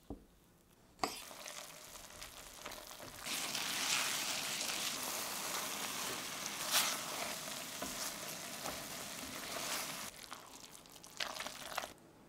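Food sizzling in a frying pan as it is stirred, with a few sharp knocks of the utensil against the pan. The sizzle swells about three seconds in and fades near the end.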